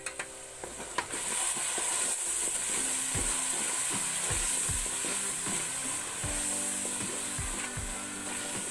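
Onion-tomato masala frying in hot ghee in a steel pot while a wooden spoon stirs it. About a second in, after a click, the sizzle jumps to a loud, steady hiss as the water added to the pan hits the hot fat.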